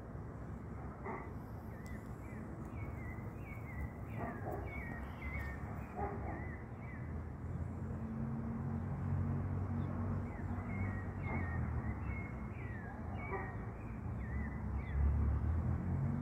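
Short animal calls repeated in quick runs, each falling slightly in pitch, over a low rumble that gets louder about halfway through.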